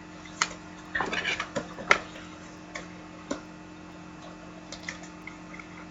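Trading cards and a plastic card case being handled: scattered light clicks and taps, a quick cluster about a second in, over a faint steady hum.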